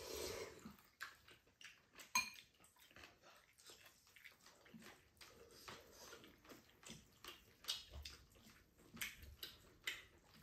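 Faint eating sounds from bowls of jjamppong ramen: noodles taken up and chewed, with chopsticks and a fork clicking against the bowls. One sharper click comes about two seconds in.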